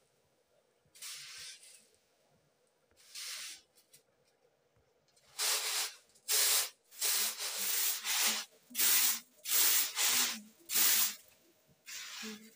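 Repeated puffs of air blown through a metal blowpipe into a wood fire in a clay stove: about eight strong, breathy blasts in a row, with short gaps between them. Before the puffs come two soft swishes of hands rubbing grain on a woven bamboo tray.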